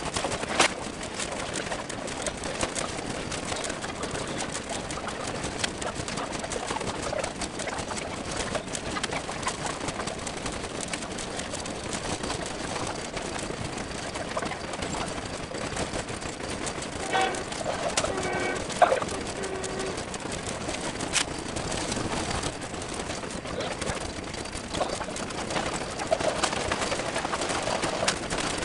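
Birds cooing and calling over a steady hiss of outdoor background noise, with a short pitched call about two-thirds of the way through.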